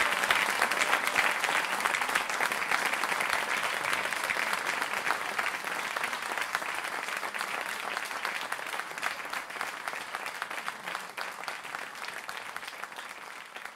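Audience applauding, a dense patter of many hands clapping that gradually fades away.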